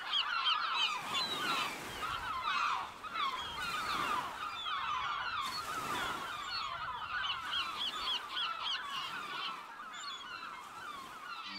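A large flock of birds calling over one another, many short calls overlapping without a break.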